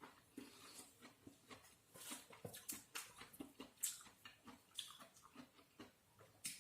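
Faint mouth sounds of someone eating: irregular wet smacks and chewing clicks.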